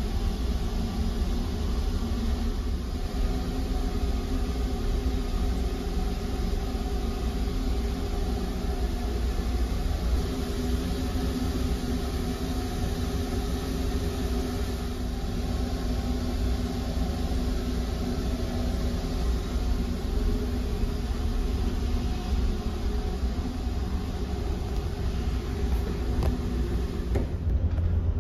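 Steady low drone of a car ferry's engines and machinery heard inside the ship, a deep rumble with a constant hum of several held tones.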